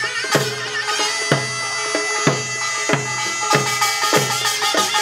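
Korean folk band music: a shrill reed wind instrument plays a wavering, held melody over drum strokes about once a second, with denser percussion joining a little past halfway.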